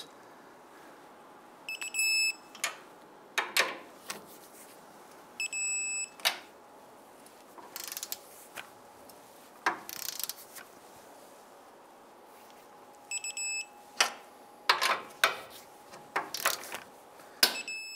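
Electronic torque wrench beeping in four short runs of high beeps, each run signalling that an 18 mm cross member nut has reached the set 75 ft-lb. Between the beeps come sharp clicks and clanks of the socket and wrench on the nuts.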